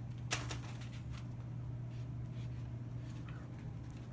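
Kitten's claws scratching and scuffing briefly, once, about a third of a second in, with a few faint ticks of paws later, over a steady low room hum.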